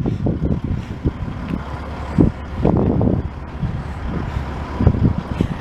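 A motor vehicle running, with uneven low rumbling that swells and fades.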